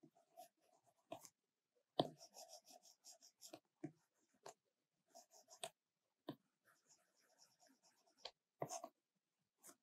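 Faint stylus strokes and taps on an iPad Pro screen while drawing: short scratchy strokes in irregular runs, with a sharp tap about 2 s in and another near the end.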